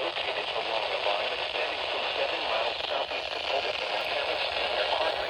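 NOAA Weather Radio broadcast received through heavy static and interference. The automated warning voice is garbled and buried in hiss.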